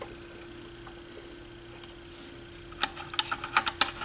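Light clicks and rattles of metal parts in a Technics SL-1301 turntable's tonearm mechanism being handled and moved, a quick run of them starting about three seconds in, over a faint steady hum.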